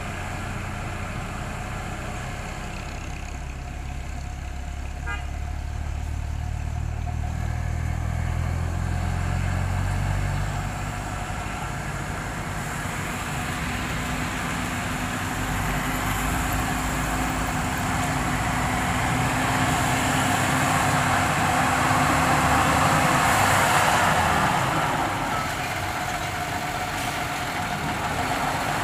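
Diesel engine of a pneumatic-tyre road roller running as it compacts a fresh asphalt patch, mixed with passing road traffic including motorcycles. The low engine hum is strongest in the first third, and a louder passing-vehicle noise builds to a peak about two-thirds through, then eases off.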